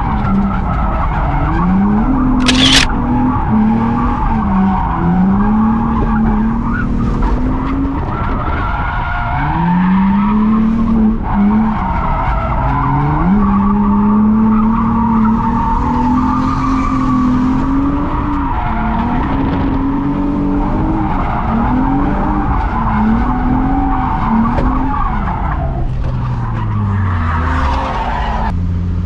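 Infiniti G35's VQ V6 engine heard inside the cabin, revving up and down again and again through a drift run, with tyres squealing. There is a sharp click about two and a half seconds in, and near the end the revs fall away to idle.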